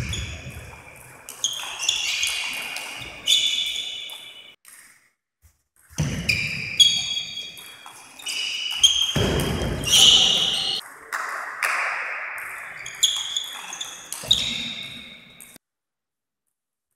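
Table tennis rallies: the plastic ball knocking off bats and table in quick sharp hits that ring in the hall, with thuds of the players' footwork. The sound breaks off to silence twice.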